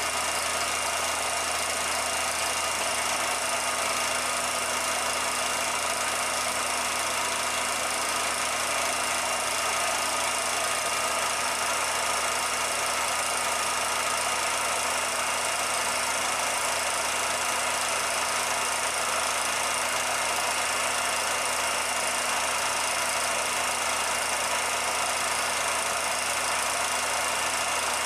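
A 16mm film projector running: a steady, unchanging mechanical running noise with a few constant hums.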